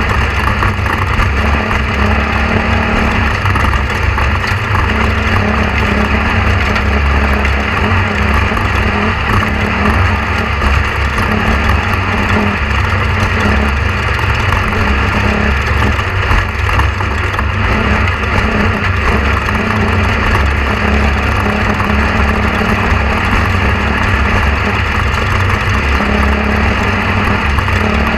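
A steady, loud, low mechanical drone like a running engine, unbroken, with no speech.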